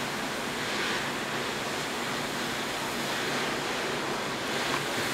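Fire hose spraying water onto a burning car: a steady rushing hiss of water on hot metal.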